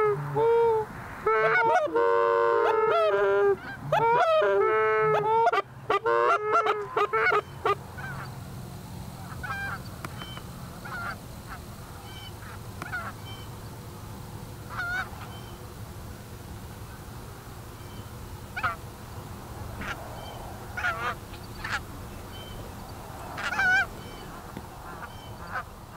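Geese honking: many loud, overlapping honks for about the first seven seconds, then thinning to scattered single honks over a low steady hum.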